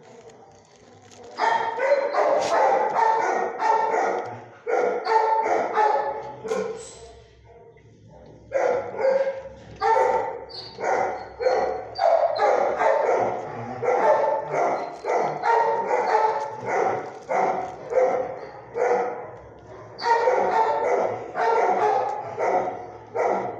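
Dogs in a shelter kennel barking over and over, about two barks a second, starting about a second and a half in, with a short pause about a third of the way through.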